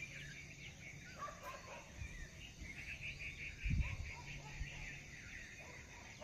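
Faint outdoor ambience of birds chirping, with a quick run of repeated high chirps about halfway through. A steady low hum runs underneath, and a single low thump comes just before the four-second mark.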